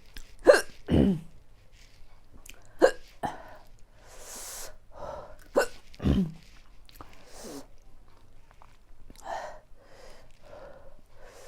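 A woman hiccuping, brought on by eating chili-heavy noodles: sharp hiccups, mostly in quick pairs, every two to three seconds through the first seven seconds, with a breath in between and softer sounds near the end.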